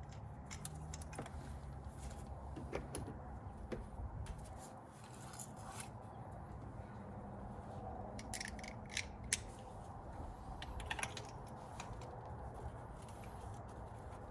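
Scattered small metallic clicks and clinks of hand tools working on spark plugs, likely a socket wrench and plug parts, with a short run of quick clicks about eight to nine seconds in.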